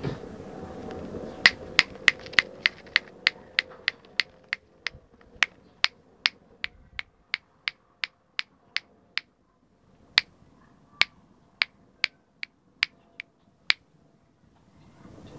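Fingers snapping over and over, about three sharp snaps a second, with a short pause about two-thirds of the way through before a few more snaps.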